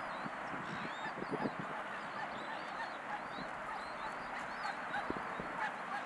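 A steady, dense chorus of birds calling by the water, with many short high chirps repeating throughout.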